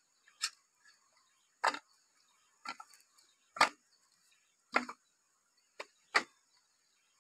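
Cut bamboo tube sections knocking together as they are picked up and stacked in the arms: seven sharp knocks at uneven spacing, about one a second, two of them close together near the end.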